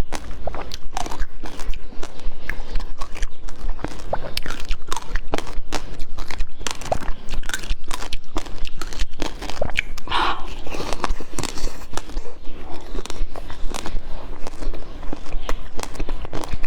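Close-miked eating: a person biting and chewing food, a dense, irregular run of short clicks and smacks throughout.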